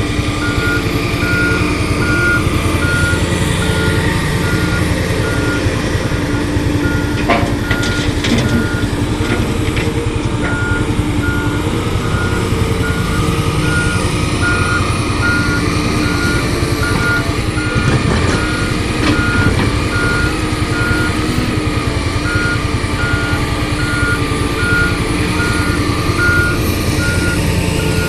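Backup alarm on heavy construction equipment beeping steadily at one pitch, about two beeps a second, with two short pauses, over a diesel engine running. A few sharp knocks sound partway through.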